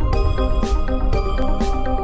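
Background music: held melodic notes over a steady beat that strikes about once a second.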